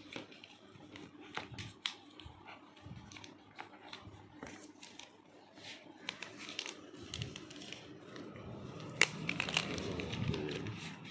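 Hands handling packaging and an Apple Magic Keyboard folio: scattered light taps and rustles of cardboard and plastic wrap, with a sharp click about nine seconds in followed by a stretch of crinkling.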